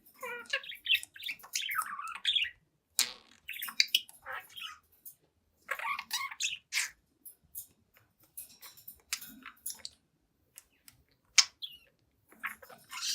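Young budgerigar chattering: a quick run of warbles, chirps and squawks, broken by a few short pauses.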